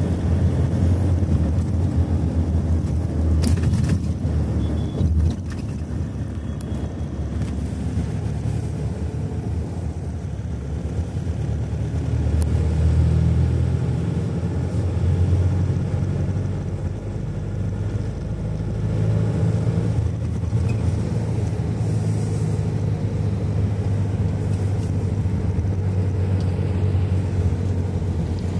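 Steady low rumble of a moving car's engine and tyres on the road, heard from inside the car, swelling and easing slightly as it drives.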